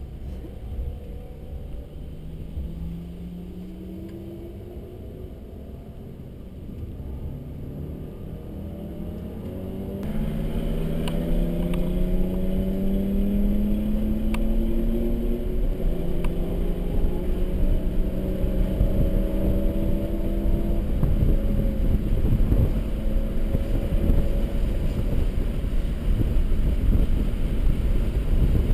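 Mercedes C300's engine heard from inside the cabin, rising in pitch through several pulls as it accelerates, over tyre and road rumble that grows louder about a third of the way through.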